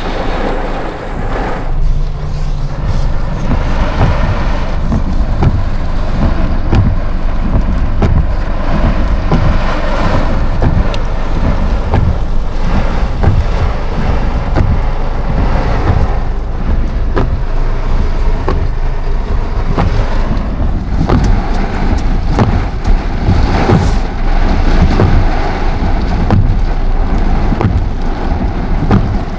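Thunderstorm with heavy rain and wind, a loud constant low rumble under the hiss of the rain.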